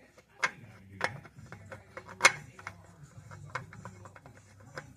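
Scattered sharp clicks and knocks, irregularly spaced, the loudest about two seconds in.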